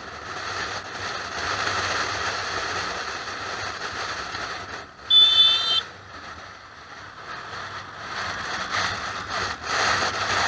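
A short, high-pitched horn beep lasting under a second, about five seconds in, over a steady rushing noise.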